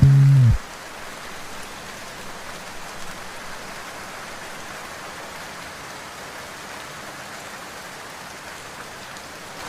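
Steady rainfall, an even hiss of rain with no other sound, after the last held note of a song cuts off about half a second in.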